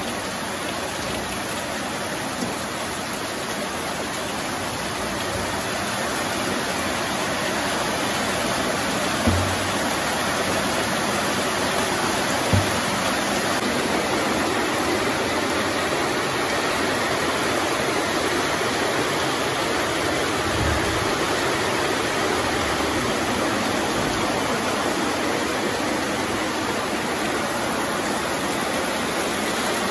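Heavy rain pouring down steadily, with two brief dull knocks about nine and twelve seconds in.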